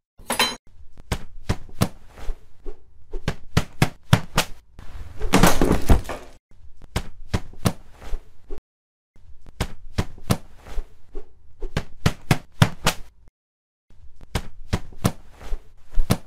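Added fight sound effects: a rapid series of sharp punch and whack impacts, several a second, in bursts broken by short dead-silent gaps, with a longer noisy crash about five seconds in.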